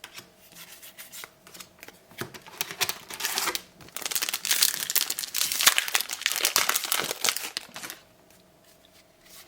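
A trading card booster pack wrapper being torn open and crinkled by hand: a run of crackling from about two seconds in, loudest in the middle, stopping about a second before the end.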